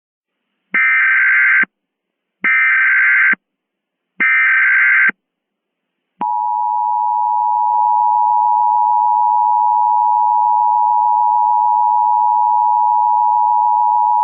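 Emergency Alert System tones: three short bursts of the SAME digital header, about a second each and evenly spaced. About six seconds in comes the steady two-tone EAS attention signal (853 and 960 Hz together), which holds on without a break.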